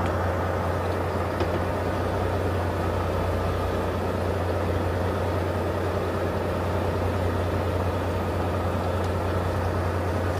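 Boat's engine idling: a steady low hum under an even wash of noise.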